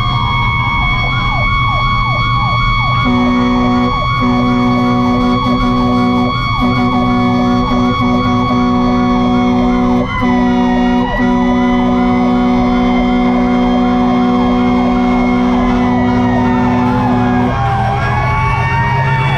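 Fire engine siren held at a steady high pitch, with air horns blaring almost continuously from about three seconds in, broken by a few short gaps. Near the end the horns stop and the siren wails up and down. Heavy engine and road rumble lies underneath.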